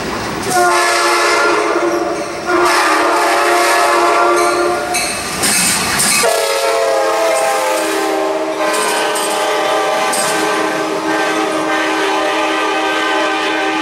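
EMD F59PHI passenger locomotive's air horn sounding two long, steady blasts, the second starting about six seconds in and held to the end, over the rumble and clatter of the passing train on the rails.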